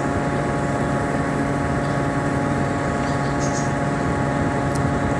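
Ship's engines and machinery running in a steady, even drone with a constant hum of several steady tones.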